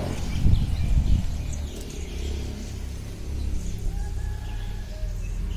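Small birds chirping here and there in the open air, over a steady low rumble, with a louder low thump about half a second to a second in.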